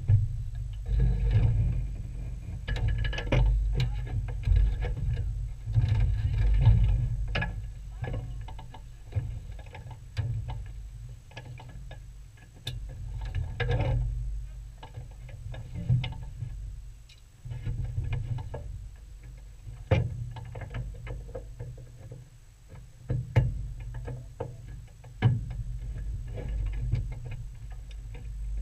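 Wind buffeting the microphone in uneven gusts, with scattered light clicks and knocks.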